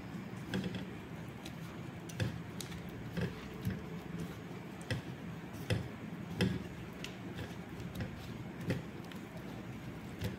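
Chicken pieces being dredged by hand in dry flour on a plate: irregular soft taps and pats, roughly one a second, as the pieces are pressed and turned in the coating, over a steady low hum.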